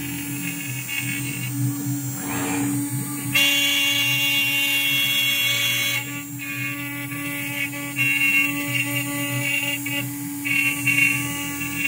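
DIY CNC router running a pocketing cut in a wooden board: the spindle runs with a steady hum, and a higher whine from the stepper-driven axes changes pitch and loudness every few seconds as the machine changes moves.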